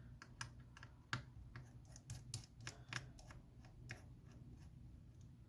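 Faint, irregular light clicks and ticks of small repair tools on the phone's small metal parts, several a second at first and thinning out later, while the metal bracket over the battery connector is being unscrewed.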